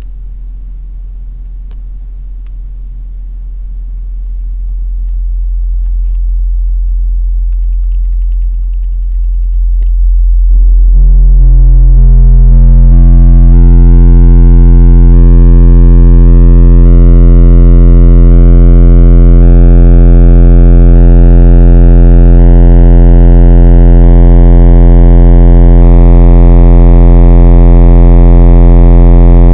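Alpine SWX-1043D Type X 10-inch subwoofer in a sealed box playing a steady 43 Hz bass test tone. The tone grows louder over the first dozen seconds as the volume comes up. From about ten seconds in, it turns very loud, with a harsh buzzy distortion laid over the deep hum.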